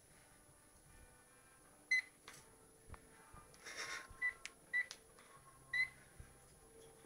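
Pet parrot giving short, high chirps, four or five in all, with a brief harsh rasp just before the middle and a few small clicks.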